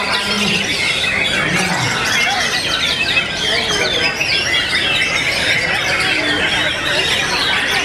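Dense chorus of many caged white-rumped shamas singing competitively at once, fast overlapping whistles and chattering phrases with no break.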